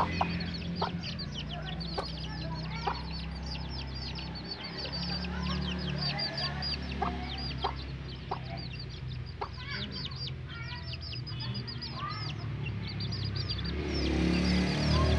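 Chicks peeping continuously, many short, high, falling cheeps overlapping, over a steady low hum.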